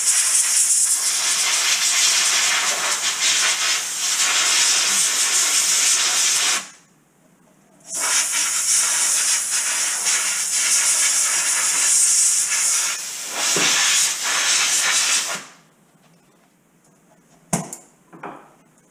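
Compressed-air blow gun at about 140 PSI, hissing hard in two long blasts of about six and seven seconds with a short break between, blowing leftover sandblast grit off metal parts before coating. A single sharp knock follows near the end.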